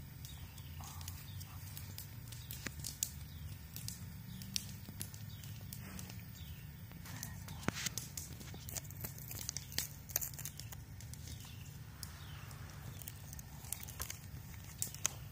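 A large Great Pyrenees–German Shepherd mix dog gnawing a cedar stick: irregular sharp cracks and crunches of the wood under its teeth.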